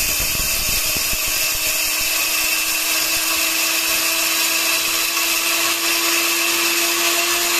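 LEJIEYIN high-speed electric grain mill running flat out, grinding whole wheat berries into coarse flour. It makes a steady motor tone over a dense rushing noise, with the hard grains clattering against the steel bowl in the first second or so.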